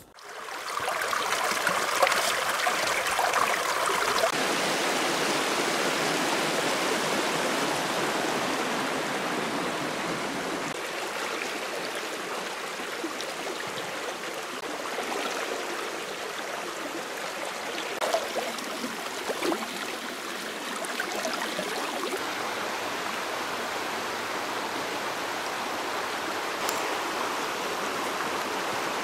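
Steady rush of river water flowing over stones, an even wash of noise that comes in abruptly just after the start.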